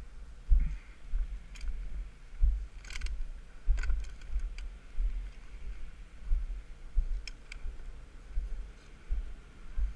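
Walking footsteps on a dirt road, heard as low regular thuds about three every two seconds, with gear clicking and rattling a few times.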